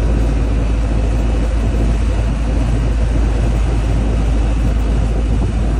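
Boat engine running steadily with a low, even drone, heard from on board.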